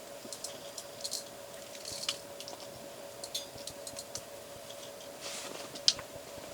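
Light clicks and taps of cooking utensils and dishes being handled, scattered and irregular, with one sharper click near the end, over a steady hum.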